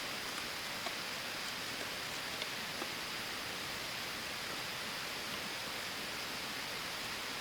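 Steady hiss of falling water, with a few faint ticks.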